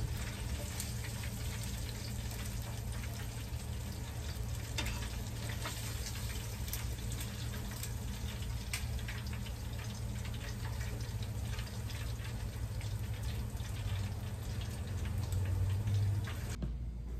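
Fish pieces deep-frying in a pot of hot oil: a steady sizzle with scattered crackles and pops of spattering oil.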